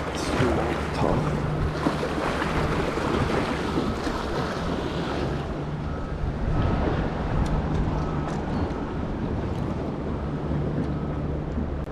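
Ocean surf washing against the rocks of a jetty, with wind buffeting the microphone and a steady low hum underneath.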